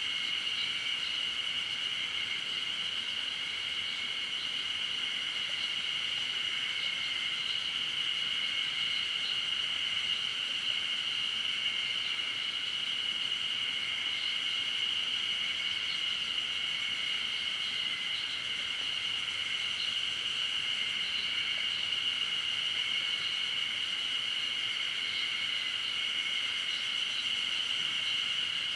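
Summer forest ambience carried by a continuous insect chorus: a steady high-pitched buzz that holds without a break, with a fainter flickering trill above it.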